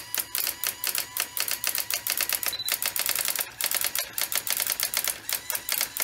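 Brother AX-25 electronic typewriter's daisy-wheel mechanism printing rapidly, a fast even run of sharp character strikes at about five or six a second with a brief break near the middle. It is printing the output of the full-screen 'top' command, which it cannot display and just keeps typing. A short high beep comes from the typewriter about two and a half seconds in.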